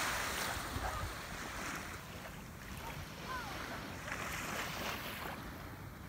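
Small waves washing onto a sandy beach from calm bay water, with wind rumbling on the microphone; the wash swells at the start and again about four to five seconds in. A faint short falling whistle sounds once, about three seconds in.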